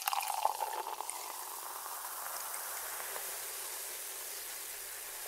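Champagne poured into a glass: splashy pouring for about the first second, settling into a steady fizz of bubbles.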